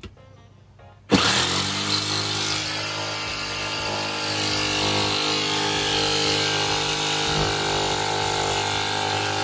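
Jigsaw starting up about a second in, its motor pitch rising briefly, then running steadily with a whine as the blade cuts through the camper wall's thin metal skin and styrofoam core.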